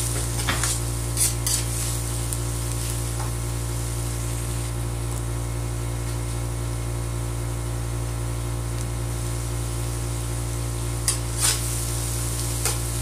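Diced onions and garlic sizzling in oil in a stainless steel wok over a steady low hum. A metal spoon scrapes and knocks against the pan a few times near the start and again near the end as it stirs.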